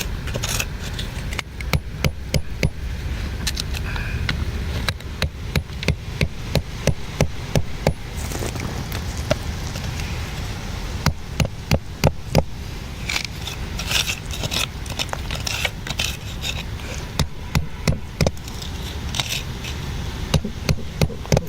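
Irregular sharp strikes of a hand digging tool on rock and earth, sometimes several a second, over a steady low rumble.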